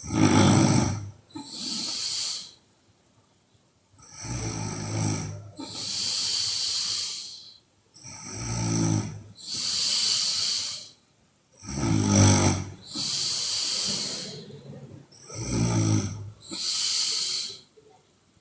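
A woman snoring very loudly in deep sleep, five breaths about four seconds apart. Each breath is a rattling snore followed by a breathy hiss, with a short pause between breaths.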